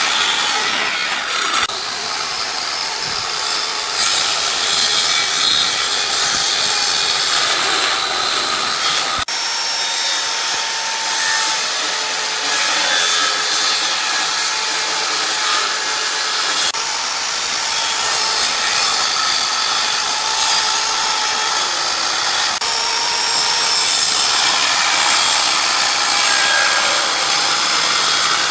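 Handheld circular saw running and cutting through pallet boards: a steady high-pitched whine with the rasp of the blade in the wood. It changes abruptly a few times.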